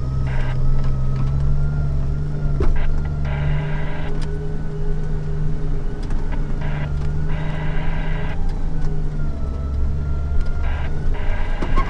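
Jeep Wrangler TJ engine running steadily at low revs as it crawls over a rutted off-road trail, with scattered knocks and clunks. A higher buzzing sound cuts in and out several times, each time for about a second.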